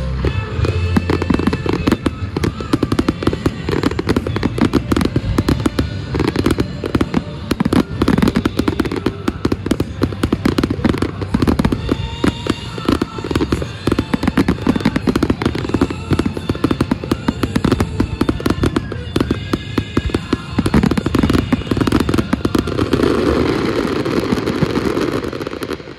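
Finale barrage of aerial fireworks: a dense, rapid string of bangs and crackles over a display soundtrack of music. The barrage dies away just before the end, leaving the echo fading.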